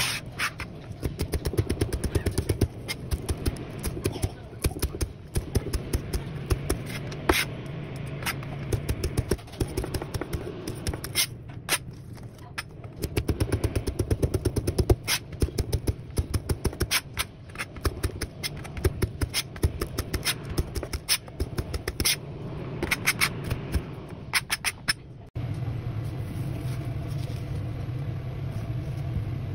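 Steel cleaver chopping green onions on a plastic cutting board: quick runs of sharp knocks as the blade meets the board, with short pauses. About 25 seconds in the chopping stops abruptly and a steady low hum takes over.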